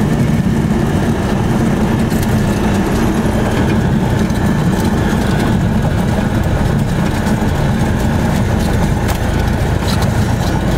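Cessna 172's piston engine and propeller running steadily at low power after landing, heard from inside the cockpit as the plane rolls out and turns off the runway. A deep, even drone.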